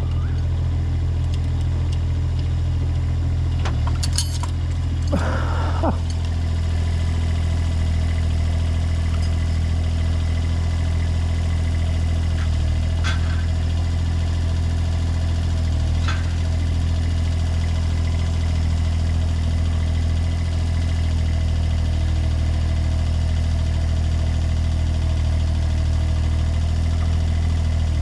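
Bandsaw sawmill's engine running steadily as the mill works, with a short higher-pitched sound about five seconds in and a couple of light clicks later.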